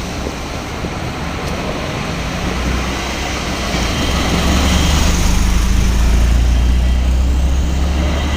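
Electric train passing over a level crossing: a steady rumble and rushing noise that builds about four seconds in into a heavy low rumble.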